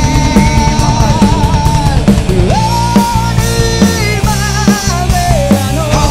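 Rock band playing an instrumental break: drums and bass under a lead melody that holds long notes, bending and wavering in pitch.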